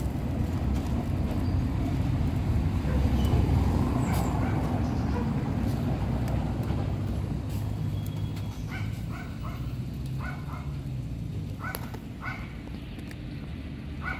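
Steady low rumble of road traffic, strongest a few seconds in and then easing off. From about halfway there is a run of short, sharp yips from an animal, about nine of them, spaced unevenly.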